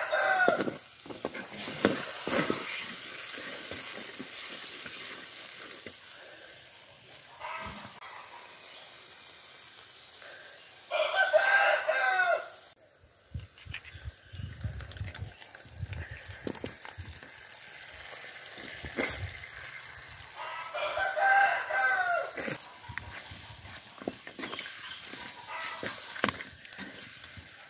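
A rooster crowing three times: right at the start, about eleven seconds in (the loudest), and about twenty-one seconds in. Each call rises and falls over about a second and a half. Between the crows, oil sizzles in a pan, with soft scrapes and clatter as chicken pieces go in and are stirred with a wooden spatula.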